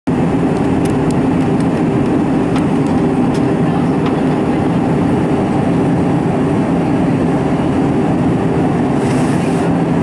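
Steady cabin noise inside an Airbus A320 during descent, its CFM56 engines droning under the rush of airflow. There are a few faint ticks in the first seconds and a short hiss near the end.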